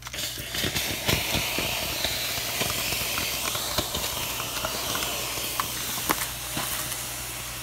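Steam iron hissing as it puffs steam over a pinned cotton-thread crochet doily to block it, the steam loosening the fibres so the piece relaxes into shape. The hiss is steady, with faint ticks, and eases off a little near the end.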